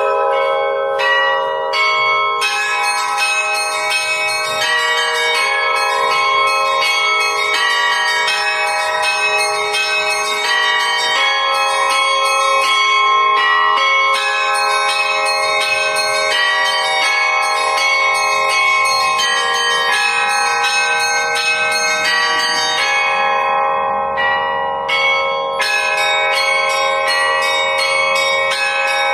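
Russian church bells of an Old Believer church ringing in a fast, dense peal: several bells of different pitch struck in a rhythmic pattern, each one still ringing as the next is struck. The pattern opens with a few lone strikes before the full peal comes in about two seconds in, and thins out briefly again about 24 seconds in.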